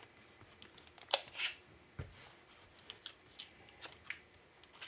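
Scattered light clicks and taps from handling small laptop parts during reassembly, with a soft thump about two seconds in.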